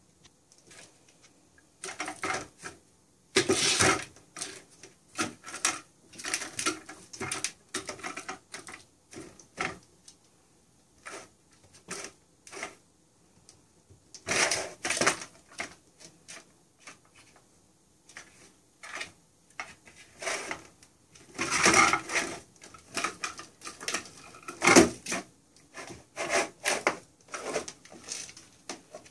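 Plastic cat toy rattling and clattering as cats bat the mouse around its circular track beneath the scratch pad, in irregular flurries with short pauses between.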